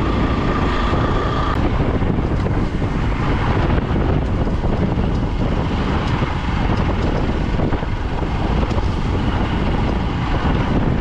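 Wind rushing over the camera microphone on a moving motorcycle at about 30 km/h, a loud, steady low rumble with the bike's engine running underneath.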